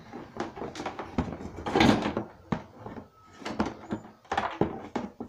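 A racing wheel's cardboard box and packaging being handled: a string of knocks and taps, with a louder scraping rustle about two seconds in.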